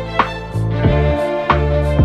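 Background music: soft sustained chords over a deep bass, with a slow, steady beat.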